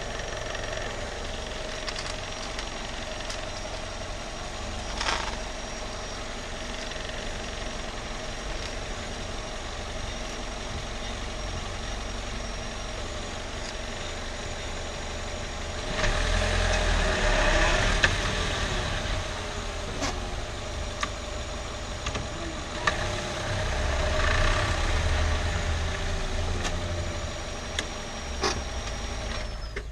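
2015 Opel Corsa running, twice swelling louder with a falling pitch as it brakes to a stop, the annoying stopping noise that the owner says is not the pads, pins or suspension.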